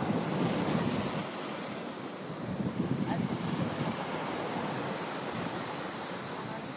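Sea waves breaking and washing on the shore, a steady rush that swells about halfway through, with wind buffeting the microphone.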